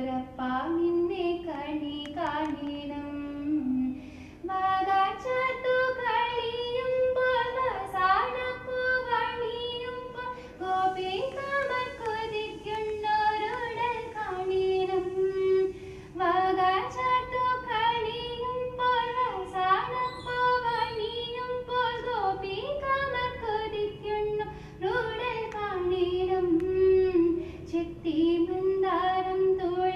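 A woman singing a Hindu devotional song to Guruvayurappan (Krishna) in a light, clear voice, with long held and ornamented notes. A faint steady drone sounds beneath her.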